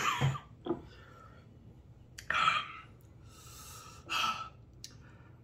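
A man breathing hard through his mouth in three or four short hissing breaths, sucking air against the burn of Carolina Reaper pepper heat.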